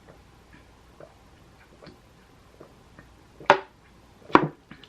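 Faint small ticks of makeup products being handled, then two loud sharp clacks about three and a half and four and a half seconds in, like hard makeup containers being set down on a table.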